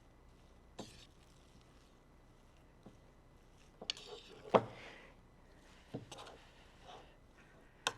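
A mixing utensil knocking and scraping against a bowl as seasoned ground pork is stirred: a few scattered short knocks, the loudest about halfway through.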